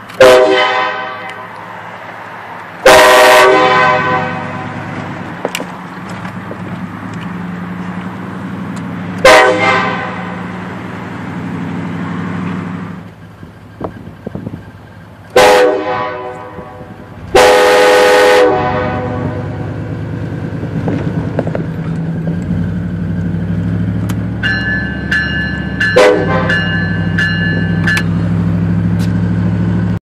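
Nathan Airchime K5LA five-chime air horn sounding six short, loud blasts, each a full chord that starts abruptly and fades quickly. Two of the blasts, about 3 s and 17 s in, are held for about a second. A vehicle engine runs steadily underneath.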